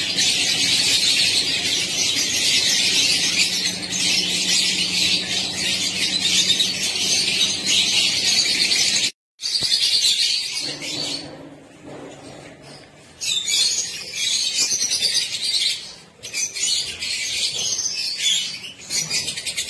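A flock of budgerigars chattering and chirping without pause. The sound breaks off for a moment about nine seconds in, goes quieter for a couple of seconds after, then the chatter resumes.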